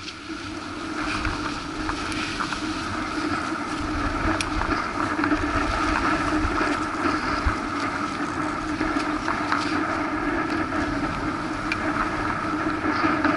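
Skis sliding over snow, with wind rushing across the microphone of a skier's camera on a downhill run. The steady rushing noise builds over the first few seconds as the run gets under way.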